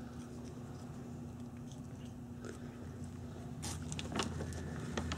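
A Maine Coon cat crunching and chewing a freeze-dried chicken treat, with soft scattered crunches and a run of sharper, louder crunches about three and a half to four and a half seconds in and again near the end.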